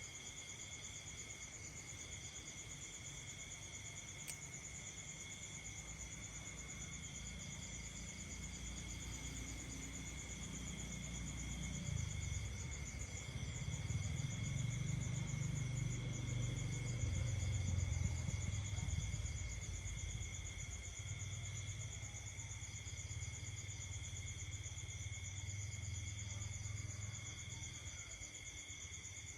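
Night insect chorus: several crickets trilling steadily at different pitches, some in pulsing rhythms, without a break. A low rumble swells up in the middle and then eases off.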